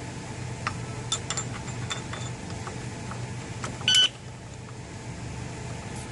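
Small metallic clicks and rattles of an alarm padlock's steel shackle being worked into place on a motorcycle chain, then a single short, loud electronic beep about four seconds in as the shackle is pressed home, the signal that the padlock's alarm is armed. A steady low hum runs underneath.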